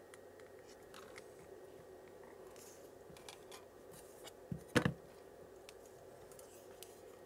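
Quiet soldering work with a soldering iron on a circuit board: a faint steady hum with scattered small clicks, then two light knocks about halfway through as the iron and board are handled.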